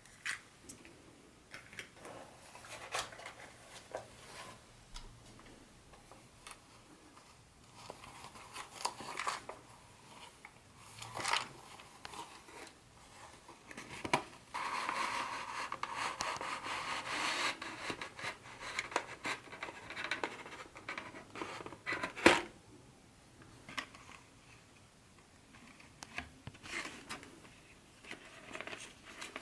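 Hands unpacking a boxed HO-scale model train set: rustling and scraping packaging, with scattered light clicks and knocks. A steadier rubbing stretch runs through the middle, and one sharp knock comes a couple of seconds after it.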